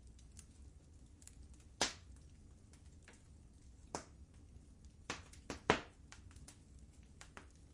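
Wood fire crackling in a fireplace: a low steady rumble of the flames with irregular sharp pops and snaps, the loudest about two seconds in and a cluster of them near the end.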